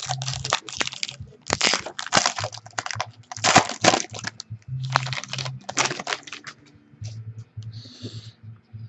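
A trading-card pack's wrapper being torn open and crinkled, with the cards handled: a run of sharp crackling rustles for about six seconds, then softer, scattered clicks.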